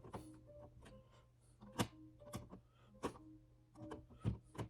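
Sharp plastic clicks and taps as a wall faceplate is fitted over a rocker dimmer switch, about five of them spread over a few seconds.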